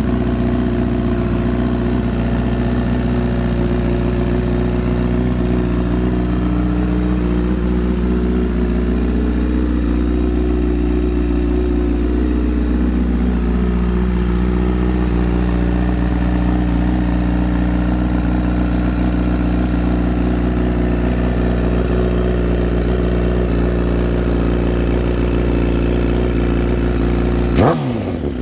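Honda CBR1000RR Fireblade's inline-four engine idling steadily through an aftermarket Toce slip-on exhaust, with one brief sudden swoop in pitch near the end.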